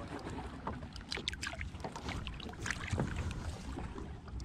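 Water splashing and lapping against the side of a small boat as a hand-lined fish thrashes at the surface and is grabbed by hand, with scattered short splashes over a steady low rumble.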